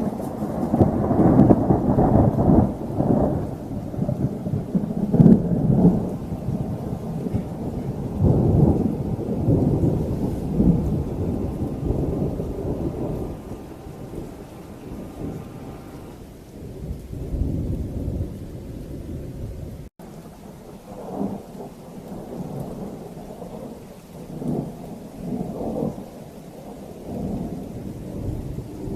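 Thunder rolling in a long, loud peal with several swells over the first ten seconds or so, then dying down, followed by softer rumbles later on, with rain falling throughout.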